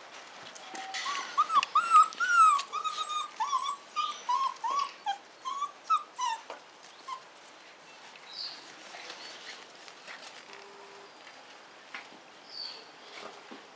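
Five-week-old Belgian Tervueren puppy whining in a quick string of short high whines, each rising and falling, that stops about six and a half seconds in.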